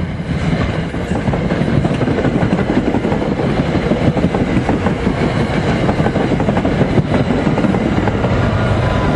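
Commuter train passing close by, its wheels clattering on the rails in a loud, steady rush.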